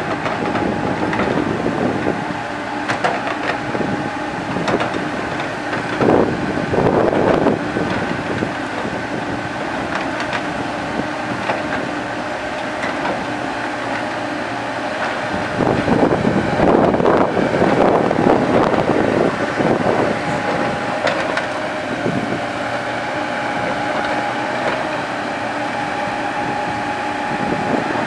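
Komatsu PC70 hydraulic excavator working: its diesel engine runs steadily, grows louder twice (about six seconds in, and again from about sixteen to twenty seconds), with scattered clanks and knocks throughout.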